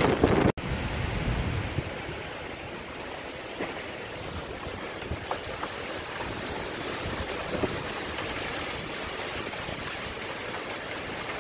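Storm wind rushing through a stand of tall spruce and bare trees, with a strong gust buffeting the microphone in the first two seconds, then settling to a steadier rush with a few faint clicks.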